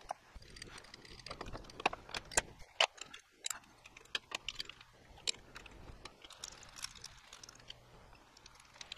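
Irregular light metallic clicks and clinks of hand work at a metal lathe: a chuck key turning in the three-jaw chuck and the tailstock center being brought up to the workpiece.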